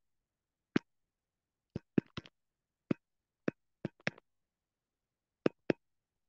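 About a dozen sharp, irregularly spaced taps and clicks from handwriting on a digital whiteboard, some in quick clusters, with dead silence between them.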